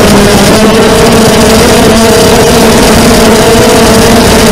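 Brushless motors and propellers of a 250-size FPV racing quadcopter heard from its onboard camera: a loud, steady buzzing whine over a rush of prop wash, its pitch wobbling slightly as the throttle changes through turns.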